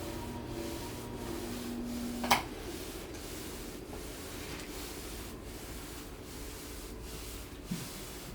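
A steady hum, then a single sharp crack about two seconds in, the moment the hum stops, during a chiropractic treatment; soft rubbing follows.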